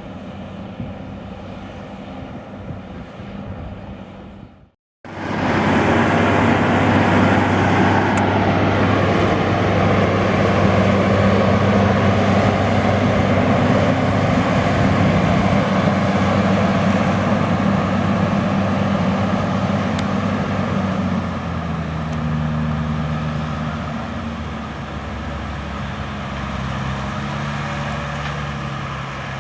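Case IH Steiger 500 Quadtrac's 12.9-litre diesel engine running steadily under load while pulling a five-furrow plough. After a brief cut about five seconds in it is much louder, and a little past two-thirds of the way through the engine note shifts and the sound eases off.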